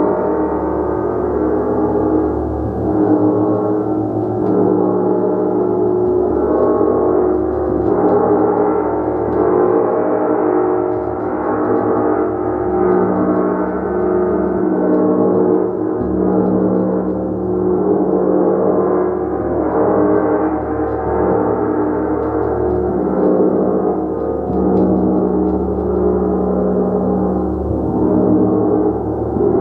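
Large suspended gong played continuously with soft mallets: a sustained wash of many overlapping ringing tones, mostly low and middle in pitch, that swells and ebbs in slow waves without a break.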